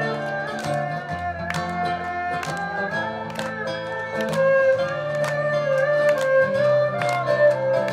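Live acoustic music: guitars strumming under a sustained, gliding melody line, with sharp claps on the beat, about one a second, from an audience clapping along.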